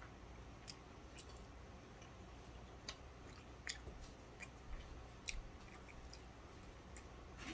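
Faint eating sounds: chewing, with scattered light clicks of forks against plates.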